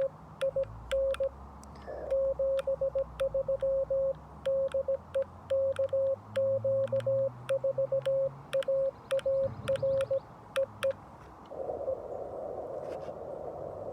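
Morse code from a Xiegu G90 HF radio: a single steady sidetone keyed in dits and dahs, with sharp clicks from the 3D-printed paddle as it is sent. The keying stops about four-fifths of the way in and gives way to band hiss through the radio's narrow CW filter.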